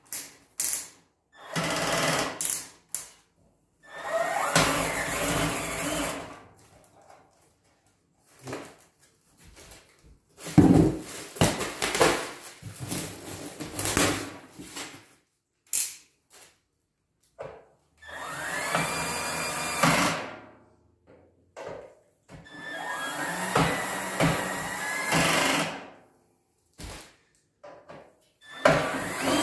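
Power drill driving screws into the steel frame panels in a series of short runs of a second or two each, the motor whine rising in pitch as several runs start. A few sharp knocks come between the runs.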